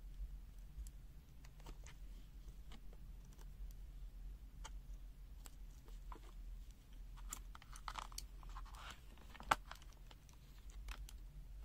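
Faint handling sounds: scattered small clicks and rustles as multimeter test leads and probes are handled and touched to a voltage-reference board, with one sharp click about nine and a half seconds in. A low steady hum lies underneath.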